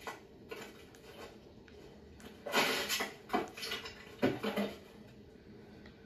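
Film sound effects played through a TV speaker into a small room: several short bursts of clattering and rustling, starting about two and a half seconds in and ending a little before five seconds in.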